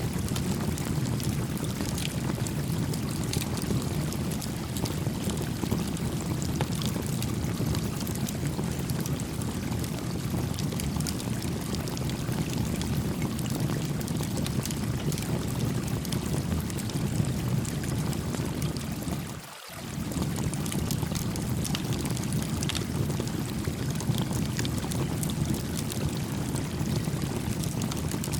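Stream water flowing steadily, with the faint sharp crackle of a small campfire over it. About two-thirds of the way through, the low rush briefly drops out and then comes back.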